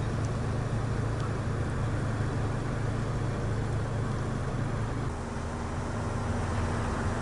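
Steady low rumble of motor-vehicle traffic with a constant low hum, easing slightly about five seconds in.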